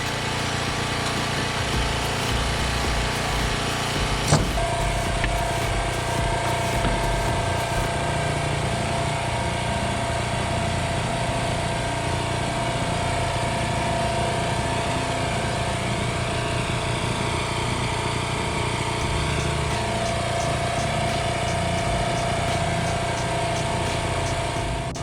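An engine or motor running steadily. A sharp click comes about four seconds in, and after it a steady whine holds on top of the running sound.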